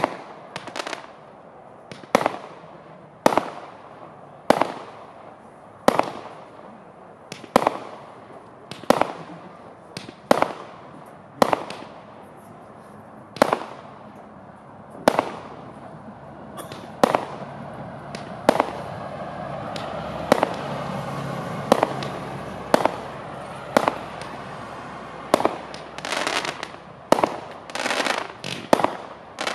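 A 192-shot, 20 mm-calibre consumer fireworks cake firing: sharp single bangs about one every second and a half, some followed by a short fizzing tail. The shots come faster and bunch together near the end.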